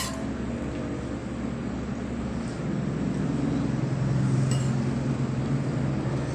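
A low steady motor hum that grows louder about three seconds in and eases near the end, with one sharp clink right at the start.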